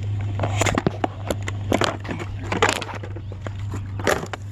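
Irregular knocks, clicks and clatter of a discarded item being handled and worked, over a steady low hum.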